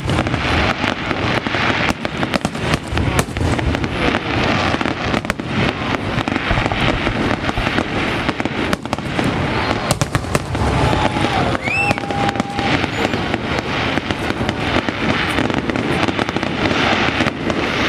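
Fireworks display going off in a dense, continuous barrage of bangs and crackles. A short rising whistle comes in a little past the middle.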